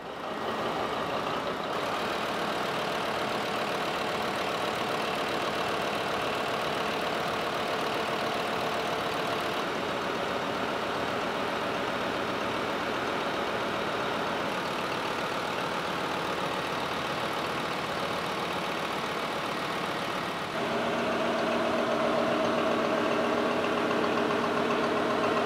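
Ship's diesel generator engine idling on a no-load test run just after its overhaul, a steady mechanical running clatter. About twenty seconds in it becomes a little louder, with a steadier hum.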